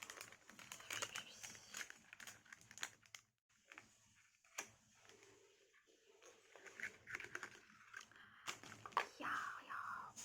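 Hands opening the packaging of a small liquid concealer: faint rustling and crinkling with many small clicks and taps, busiest at the start and again in the last few seconds, quieter in between.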